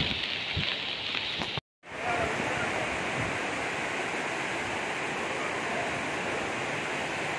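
Steady rushing of floodwater pouring into a flooded building, an even hiss of water that starts after a brief dropout about a second and a half in; before it, a short stretch of outdoor wind noise.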